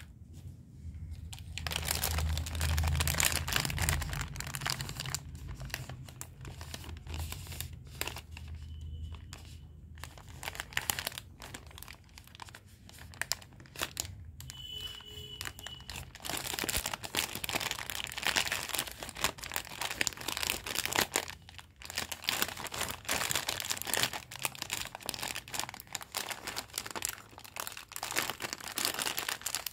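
Crinkly plastic snack packets and sweet wrappers rustling and crackling as they are handled, with some tearing of wrapper. A low rumble from handling runs under it for the first several seconds.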